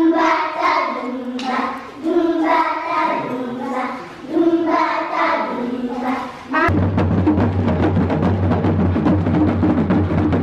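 A group of young children singing a song together. About six and a half seconds in it cuts abruptly to hand drums playing dense, continuous drumming.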